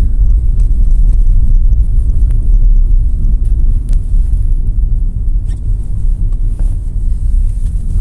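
A car driving on a road, heard from inside the cabin: a steady low rumble of engine and tyre noise.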